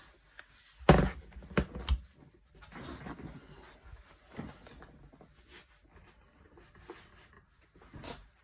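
A MacBook Pro lid being closed: one sharp knock about a second in, then two lighter clicks, followed by faint handling sounds and a small click near the end.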